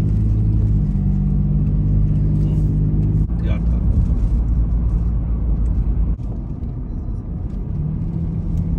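Car engine and road noise heard from inside a moving car. The engine note drops about three seconds in, the noise eases off around six seconds in as the car slows, and the engine builds again near the end.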